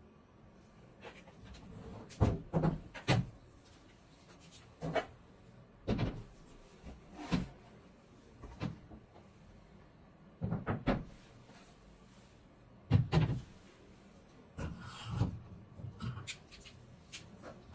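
Irregular knocks and clicks, about a dozen with some in quick clusters, as metal and plastic parts of a queen bee artificial insemination instrument are lifted from a hard plastic carrying case, the case is shut, and the parts are set down and fitted together.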